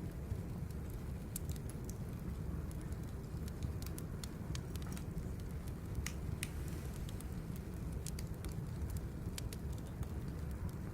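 Birch firewood burning, crackling with scattered sharp pops over a steady low rumble of the fire.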